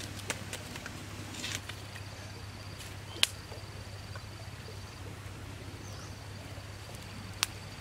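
A thin, steady high insect tone that stops for a moment near the middle, with a few sharp clicks over it: the loudest a little after three seconds in, another near the end.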